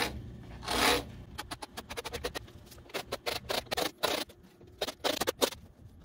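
Carbide grout-removal tool scraping a score line into fiberglass-faced cement board, pulled along a straightedge. One longer stroke near the start, then a run of short, quick strokes.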